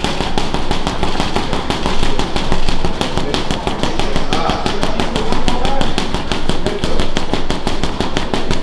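Boxing gloves hammering a heavy bag in a rapid, unbroken flurry of punches, many thuds a second.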